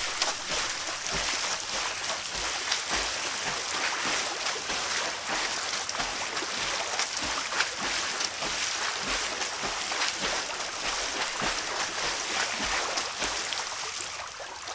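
Water splashing in a swimming pool as someone swims: continuous churning with many irregular sharp splashes, trailing off near the end.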